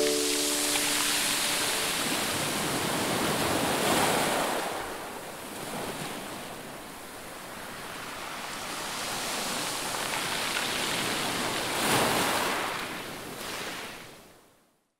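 Sea waves washing in, swelling about four seconds in and again near twelve seconds, then fading out near the end.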